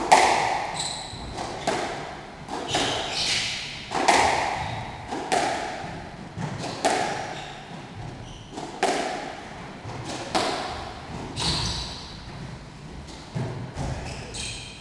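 Squash rally: the rubber squash ball cracks off the rackets and slaps against the walls, sharp echoing hits about every second or so in the enclosed court.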